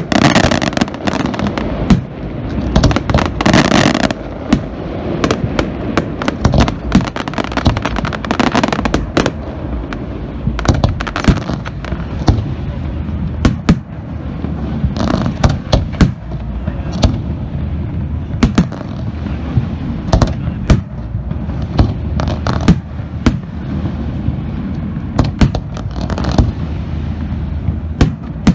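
Fireworks display: aerial shells bursting one after another, many sharp bangs over a continuous low rumble, with a dense crackling stretch in the first few seconds.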